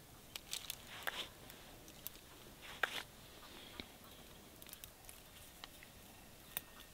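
Rose hips being picked by hand from a thorny rose bush: scattered faint snaps and rustles of stems and twigs, with a sharper click about a second in and again near three seconds.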